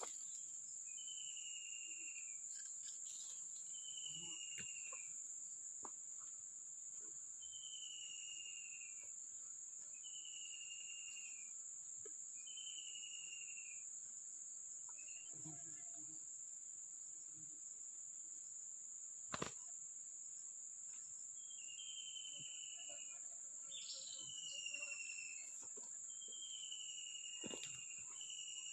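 Steady high-pitched insect drone of crickets or cicadas, with a bird repeating a short, slightly falling whistled note every two seconds or so, pausing now and then. A single sharp click about two-thirds of the way in.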